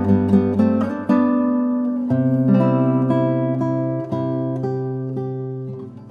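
Background music: an acoustic guitar playing, quick plucked notes at first, then slower notes left to ring, fading briefly near the end.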